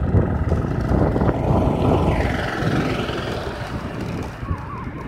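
Wind buffeting the microphone of a phone riding on a moving bicycle: a loud, unsteady low rumble, with a lighter hiss rising over it from about two seconds in.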